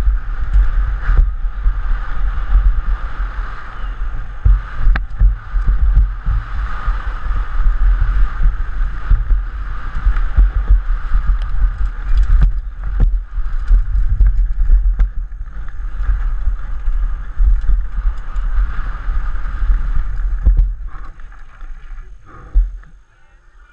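Downhill mountain bike ridden fast over a rough trail, picked up by a helmet-mounted camera: a steady loud rumble of wind and trail buffeting the microphone, with frequent sharp knocks and rattles from the bike over bumps. The noise falls away about 21 seconds in as the bike comes to a stop.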